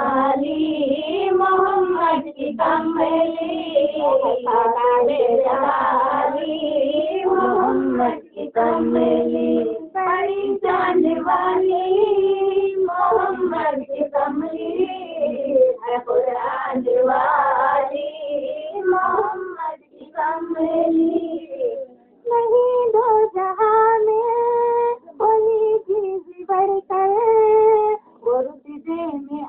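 A high solo voice singing a naat, an Urdu devotional song in praise of the Prophet Muhammad, in long melismatic phrases with short breaks between them. No instruments are heard.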